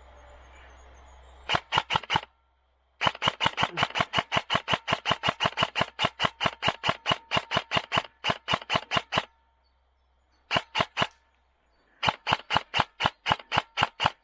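Airsoft electric rifle, a Specna Arms SA-E19, firing strings of rapid shots at about five a second. There is one short burst, then a long run of about six seconds, a brief burst, and another run near the end.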